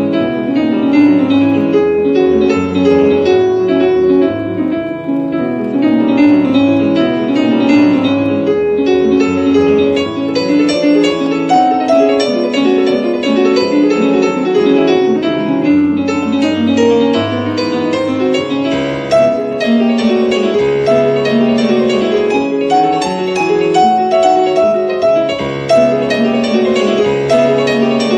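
Piano playing a continuous passage of many notes at a steady loudness.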